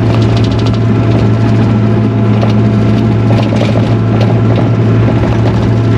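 Takeuchi TL240 skid steer's engine running with a steady low drone, with many light clanks and rattles from the machine working over it.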